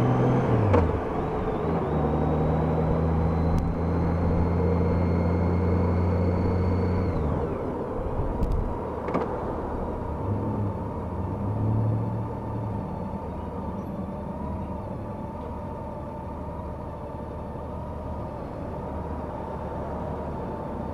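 Honda F6B's flat-six engine running under way, heard from the rider's helmet, with a steady low drone and a faint rising whine. About seven seconds in the engine note drops away as the bike slows, leaving quieter steady running.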